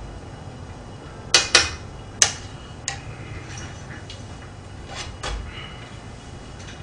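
Metal kitchen utensils and dishes clinking: three sharp clinks about a second and a half in, then a few fainter knocks as scissors and a cutting board are picked up.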